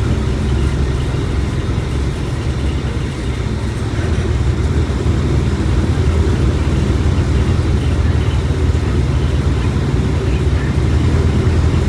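Mercedes-Benz OF1721 BlueTec 5 bus's diesel engine running, a steady low drone that grows slightly louder a few seconds in.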